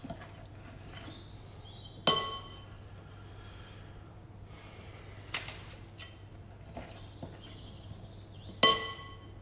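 Metal spoon knocking against a glass mixing bowl: two sharp, ringing clinks about six and a half seconds apart, with a few softer taps between them.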